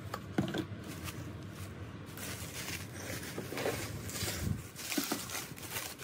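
Plastic bubble wrap rustling and crinkling as it is pulled off a ceramic bowl, with a crackle of small clicks, busiest through the middle.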